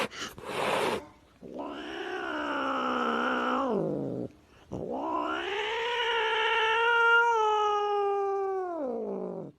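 A cat yowling in two long, drawn-out calls. The second lasts about five seconds, and each trails off downward in pitch at the end. Two short noisy bursts come just before them.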